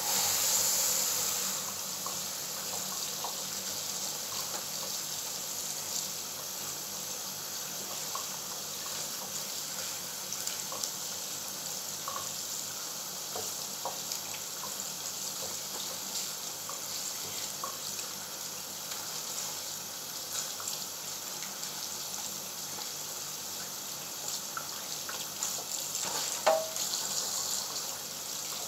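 Kitchen tap turned on and running steadily into a metal sink as raw prawns are rinsed and peeled under the stream, with small scattered clicks of handling and a short knock near the end.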